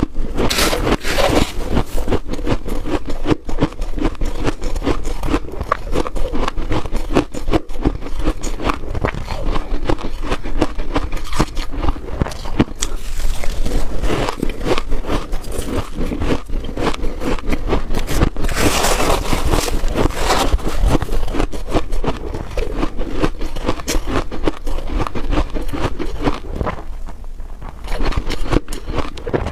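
Freezer frost being scraped, bitten and chewed close to the microphone: a dense, unbroken run of crunching and crackling.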